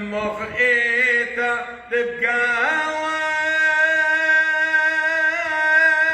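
A man chanting a Syriac church hymn solo, with ornamented, wavering turns in the first two seconds, then a long held note.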